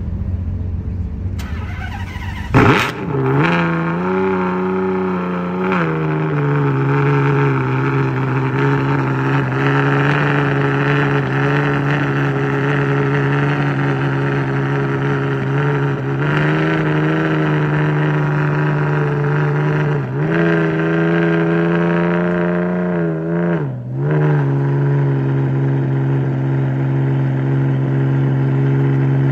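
Ferrari Enzo's V12 engine starting about three seconds in, then idling steadily, its pitch rising and falling slightly a few times.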